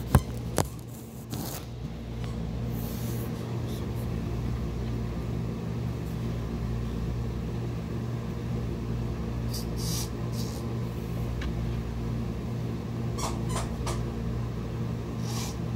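Low, steady electrical hum of a running appliance. A few sharp knocks at the start are the phone being handled, and several short, soft sounds in the second half come as he sips from a plastic cup.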